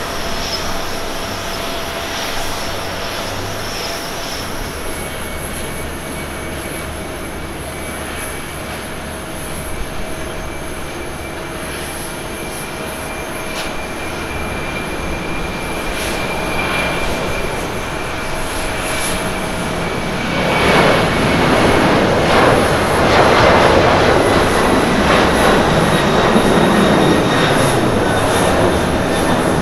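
Twin-engine jet airliner at takeoff thrust, an ANA Boeing 767-300ER on its takeoff run: steady jet noise with a faint whine slowly falling in pitch. The rush grows much louder about two-thirds of the way through as the plane passes and lifts off.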